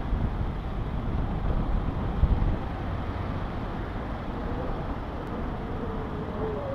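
A car driving slowly, heard from a camera mounted on the outside of the body: a steady low rumble of engine, tyres and wind on the microphone, a little louder in the first two seconds. A faint thin whine wavers near the end.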